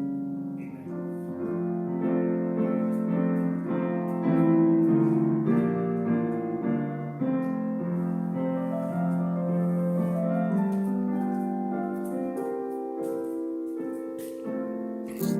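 Keyboard music: slow, sustained chords played as the closing music after the benediction of a church service.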